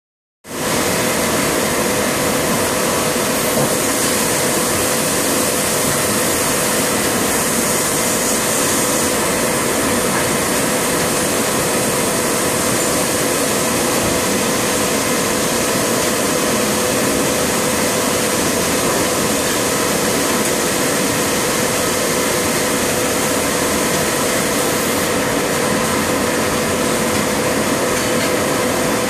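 Transfer molding machine running: a steady mechanical hum and hiss with a held mid-pitched tone, and no distinct clunks or knocks.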